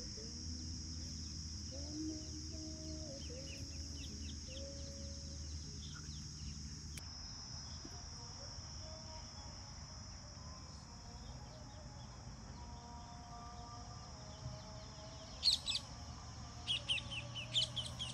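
Steady high-pitched insect drone, like crickets or cicadas, with a bird chirping in a few short bursts in the last few seconds.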